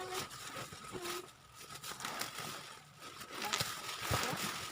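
Bubble wrap crinkling and rustling in uneven bursts as its many layers are pulled off a package, with scattered small crackles.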